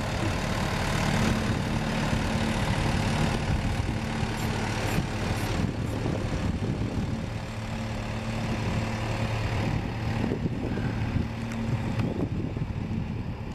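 Tractor engine running steadily while pulling a plough through the soil.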